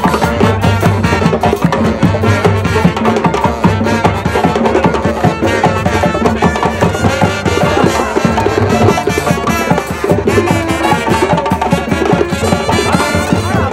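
Live street band playing an upbeat tune: saxophone and trombone over a steady, fast beat from a drum kit and a djembe hand drum.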